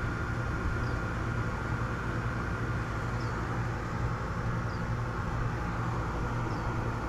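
Steady low mechanical hum with a faint, steady high tone above it, and a faint short chirp every second or two.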